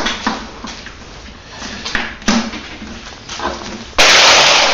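Scattered light knocks and clicks of parts being handled on a small vintage snowmobile, then a sudden loud rush of hiss-like noise about four seconds in that lasts under a second.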